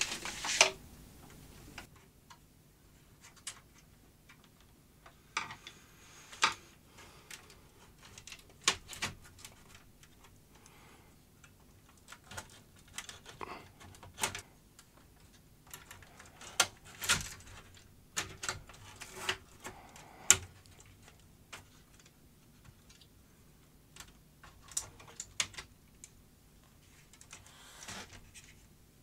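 Irregular light clicks, taps and knocks of a Philips DCC900 Digital Compact Cassette deck being taken apart by hand: screws, a screwdriver and the deck's sheet-metal casing and internal parts handled.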